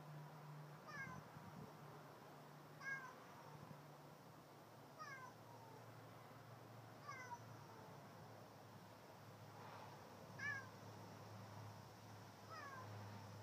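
A cat meowing over and over: short meows that fall in pitch, about one every two seconds, faint, over a steady low hum.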